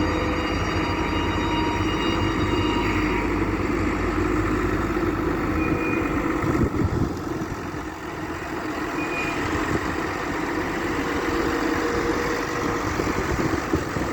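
Develon wheel loader's diesel engine running steadily, easing off briefly about halfway through and then picking up again.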